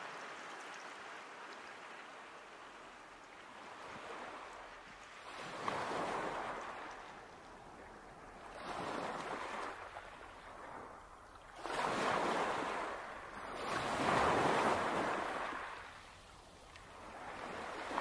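Sea waves washing onto the shore, swelling and falling back in surges every two to three seconds, loudest in the second half.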